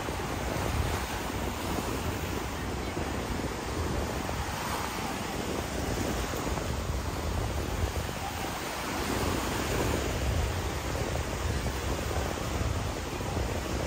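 Surf washing onto a sandy beach, heard as a steady wash of noise, with wind buffeting the microphone as a low, uneven rumble.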